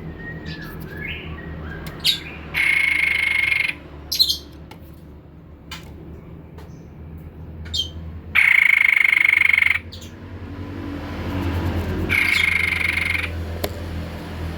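White-chested babbler singing: three long buzzy notes, each held at one pitch for about a second, spaced several seconds apart, with short sharp chirps between them. A low steady hum runs underneath.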